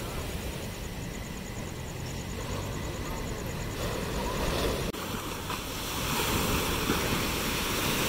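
Heavy surf: large waves breaking and foaming against a rocky shore, a steady rush of water that grows louder about six seconds in.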